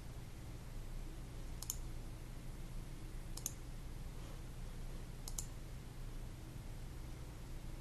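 Three sharp computer mouse clicks, about two seconds apart, over a low steady hum.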